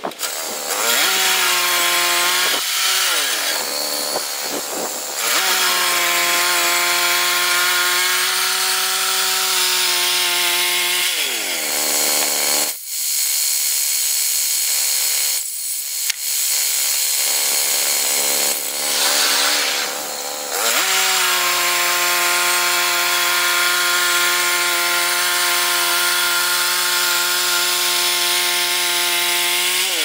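Woodland Mills HM122 portable bandsaw mill running, its gas engine working steadily as the band blade cuts through a pine log. The engine's pitch drops and comes back up several times, with a longer drop near the middle.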